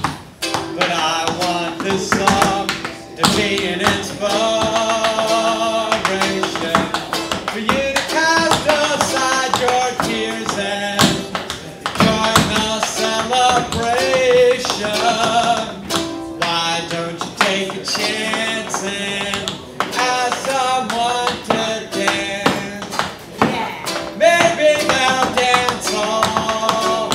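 A guitar-backed song in a passage without sung words, with a wavering melodic lead over the chords. Tap shoes click on the floor in quick, uneven runs of taps throughout.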